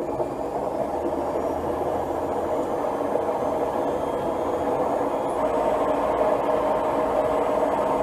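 Hotpoint Aquarius WMA54 washing machine running with a brick in its drum: the motor and turning drum make a steady mechanical drone that slowly gets louder.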